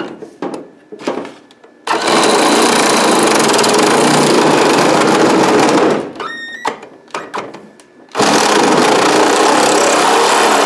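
Power saw with a reciprocating blade cutting through PVC electrical conduit: a few short stop-start bursts, then about four seconds of steady sawing, a pause, and a second run of about three seconds that finishes the cut.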